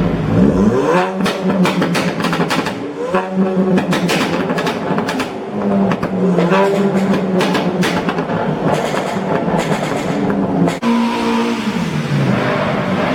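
Car engine revved hard several times, each rev climbing in pitch and dropping back, with rapid exhaust pops and crackles between the revs.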